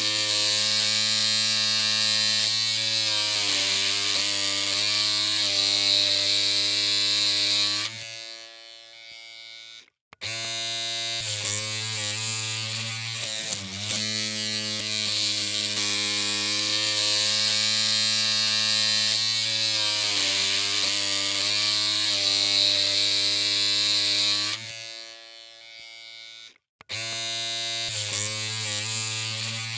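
Electric hair clippers running with a steady buzzing hum. The pitch wavers slightly now and then. About eight seconds in the buzz drops away to a fainter sound, goes silent for a moment and starts again, and the same happens near the end.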